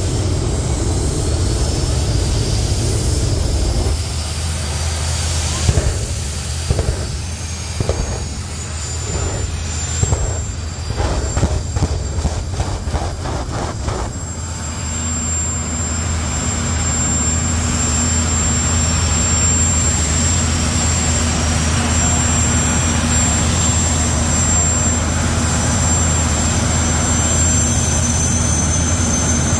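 Jet dragster turbine engines running with a steady low rumble, broken in the middle by a run of rapid pulses. From about halfway on, a steady high whine sits over the rumble.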